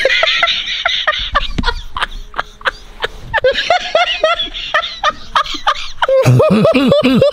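A man laughing hard in a string of breathy bursts, turning into a steady run of "ha-ha" pulses near the end.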